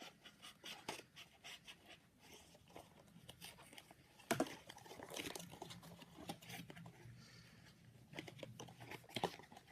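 Sealing tape being peeled off a cardboard phone box, with irregular scratchy tearing and crinkling handling noises; the loudest scrape comes about four seconds in.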